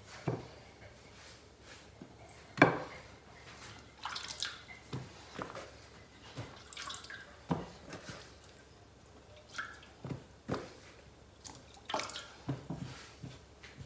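Chicken wings being dipped by hand in a bowl of water and tossed and pressed in flour: irregular drips, splashes and soft pats, with a sharp knock about two and a half seconds in, the loudest sound.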